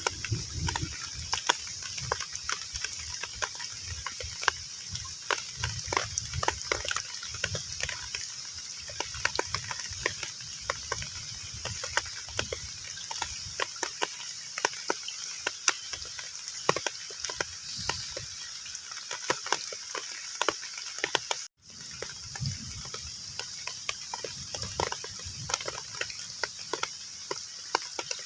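Heavy rain falling on a pond's water surface: a steady hiss with dense, irregular drop splashes and plinks. The sound cuts out for a split second about three-quarters of the way through, then resumes.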